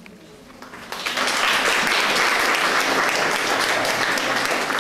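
Audience applauding: the clapping starts about a second in and then holds steady.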